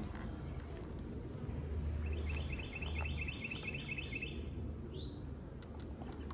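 A songbird sings a quick trill of about a dozen short, high notes lasting about two seconds, then gives a single short rising chirp. A low, steady hum runs underneath.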